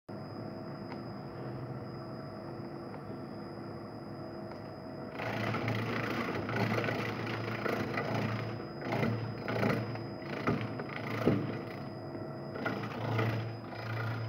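Industrial vegetable slicer running, first with a steady motor hum and a high whine. About five seconds in it turns into a louder, rough clattering rush that swells and dips roughly once a second as jalapeño halves are fed through the blades and cut into strips.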